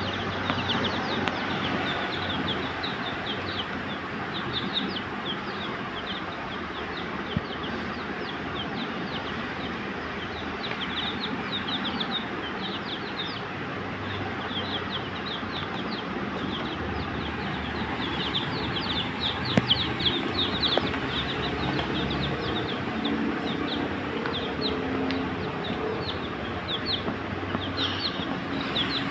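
A group of chicks peeping continuously, many short high chirps overlapping one another, over a steady background noise.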